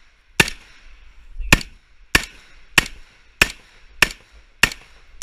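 HK G3 rifle, chambered in 7.62×51mm NATO, firing single shots in quick succession: seven sharp reports, the first two a little over a second apart, then a steady pace of about one and a half shots a second, with another shot at the very end.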